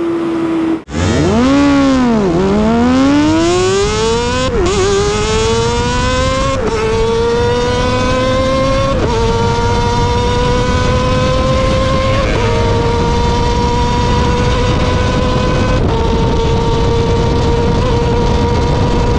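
Bored-up 300cc Kawasaki ZX25R inline-four engine running at very high revs under hard acceleration. After a brief break about a second in, the pitch climbs and drops back slightly at each of several upshifts, then holds at a high, steady howl while cruising at speed, with wind noise underneath.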